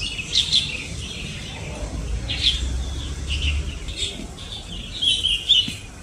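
Small songbirds giving a string of short chirping calls, one after another, the strongest about five seconds in, over a low steady hum.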